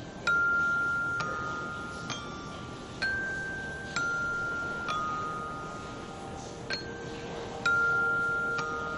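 Background music: a slow melody of bell-like chime notes, about one struck note a second, each left to ring on. A low held tone comes in underneath about two thirds of the way through.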